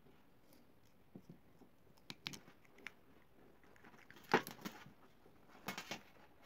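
Scattered small clicks, knocks and rustles of a plastic two-pin plug and its wire being handled and fitted together, with the loudest knock about four seconds in.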